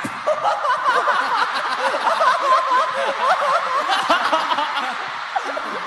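A group of people laughing together, many voices overlapping at once.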